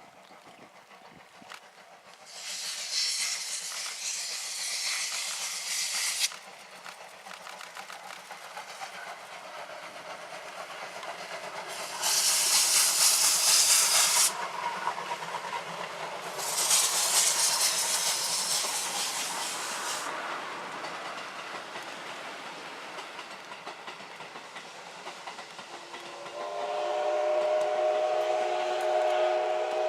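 Steam locomotive of the SL Yamaguchi train hissing in three loud bursts of venting steam while the train rumbles along. About 26 seconds in, its steam whistle sounds a long, steady chord of several notes at once.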